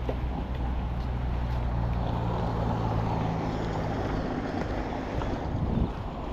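A motor vehicle's engine running close by in street traffic: a low, steady hum that grows louder for a few seconds and then fades, over a wash of traffic noise.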